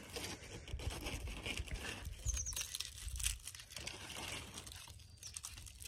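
A bag crinkling and rustling in many small crackles as a dried sunflower seed head is worked into it.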